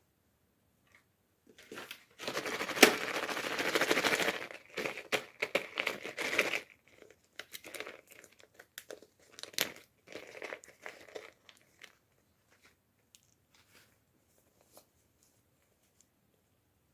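Packaging wrapper crinkling and tearing as a toy is unboxed. There is a dense stretch of rustling and ripping about two seconds in, followed by shorter crinkles that thin out to a few faint clicks near the end.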